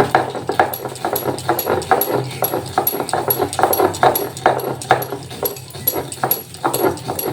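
Mustard seeds being ground into a paste, a fast run of rhythmic grinding strokes about three to four a second.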